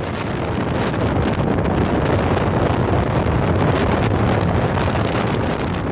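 Wind buffeting the microphone of a camera carried on a moving vehicle, over the vehicle's road noise; the level rises during the first second.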